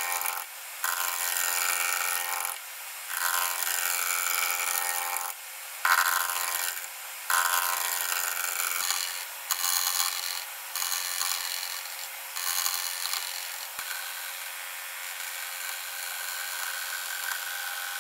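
Bowl gouge cutting a spalted beech blank that spins off-centre on a wood lathe: a string of buzzing cuts a couple of seconds each with short breaks between, the roughing cuts taking the corners off the side. From about two-thirds in the cutting turns lighter and steadier, the shearing cut that brings the side into shape.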